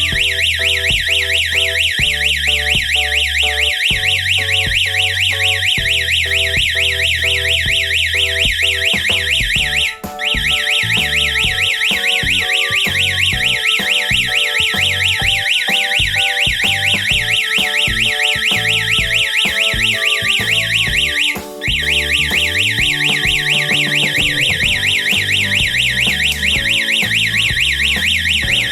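Security alarm system's electronic siren sounding a loud, fast up-and-down warble. It cuts out briefly twice, about ten seconds in and again about eleven seconds later, then starts straight back up. Background music plays underneath.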